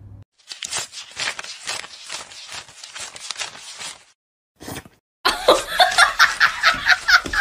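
A person laughing in short, repeated bursts. The laughter stops briefly about four seconds in, then comes back louder and faster.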